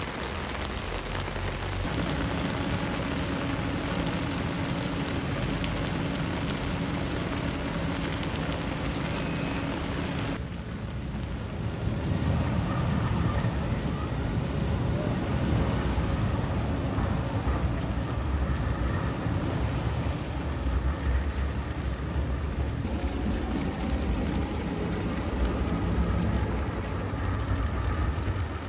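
Torrential rain pouring down and floodwater rushing across pavement, a steady dense hiss. About ten seconds in it turns to a louder, deeper rush of running water.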